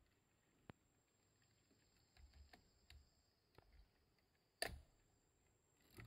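Near silence, broken by a few faint, sharp clicks. The loudest click comes a little past three-quarters of the way through, with soft low thumps before it.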